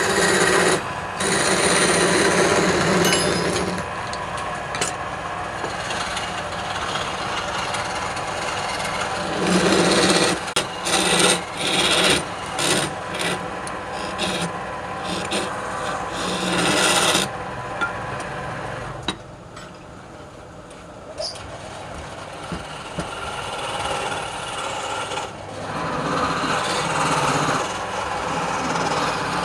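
Turning tool cutting wood spinning on a lathe, a rasping, scraping sound that comes in repeated passes with short breaks between them and eases off for a few seconds past the middle.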